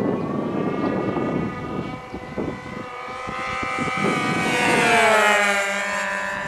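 Twin-engine radio-controlled model airplane flying past. The buzz of its fuel-burning engines grows louder, peaks about five seconds in, then falls in pitch as it moves away. A low rumbling noise comes first.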